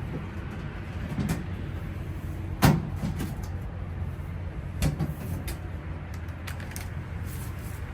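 Steady low hum of a furnace blower motor that keeps running with no 24-volt signal, the sign of a failed control module on the motor. A few short knocks of handling sound over it, the loudest about a third of the way in.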